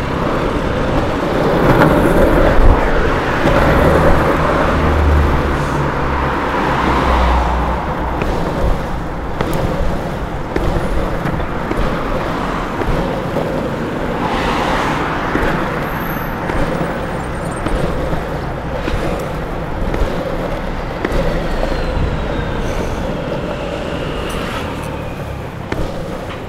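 Longboard wheels rolling over asphalt, a steady rolling noise, with road traffic around. A motor vehicle's low engine rumble sounds close by for several seconds near the start.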